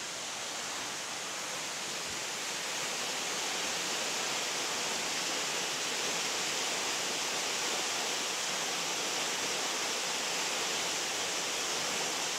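Waterfall pouring into a rocky pool: a steady rush of falling water that grows a little louder over the first few seconds, then holds.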